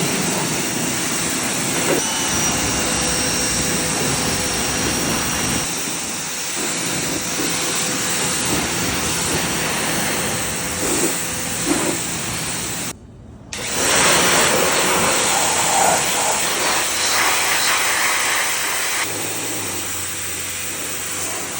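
Westinghouse electric pressure washer spraying water in a steady hissing jet. It cuts out briefly about thirteen seconds in, then starts spraying again.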